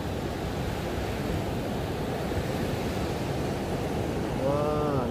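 Steady wash of surf breaking on a sandy beach, with wind on the microphone. Near the end a person's voice gives a brief sound that rises and then falls in pitch.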